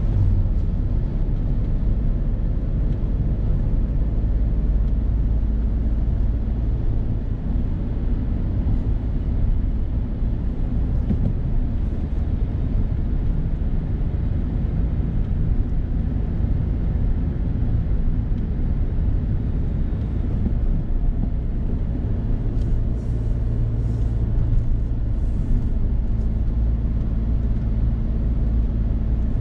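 Steady low rumble of a Suzuki Hustler kei car's three-cylinder engine and tyre noise while driving, heard inside the cabin. An oncoming truck passes right at the start.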